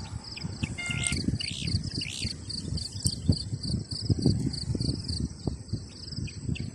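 Insects, likely crickets, trilling in a fast, even, high-pitched pulsing that stops about two and a half seconds in, with a few short chirps, over irregular low buffeting noise.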